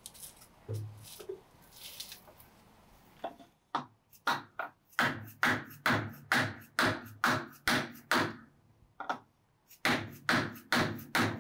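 Dead blow hammer striking the seized shaft of a cast-iron jointer infeed table, driving it to free the table. After a few light knocks come about ten hard blows at roughly two a second, a short pause, then about five more.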